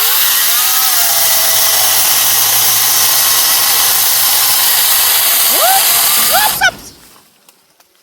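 Einhell battery chainsaw revving up with a rising whine, then running loudly and steadily as it cuts through a branch of a small tree. The pitch swoops up a few times about six seconds in, and the saw stops about seven seconds in.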